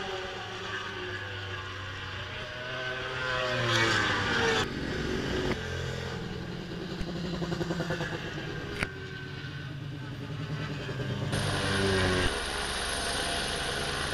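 Superbike racing motorcycle engines passing at speed, their pitch rising and falling as each bike goes by, heard in several short cuts.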